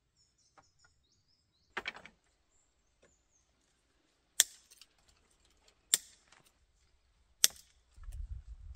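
Three sharp knocks, evenly about a second and a half apart, after a shorter crunch about two seconds in. Faint bird chirps come in the first second and a half, and a low rumble starts near the end.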